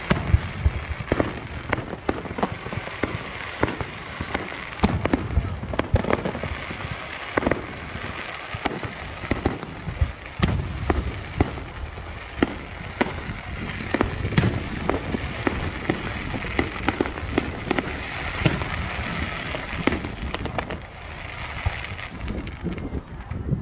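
Fireworks display: aerial shells bursting one after another, many sharp bangs, some in quick clusters, over a continuous noisy crackle. The bangs thin out and the noise drops a little near the end.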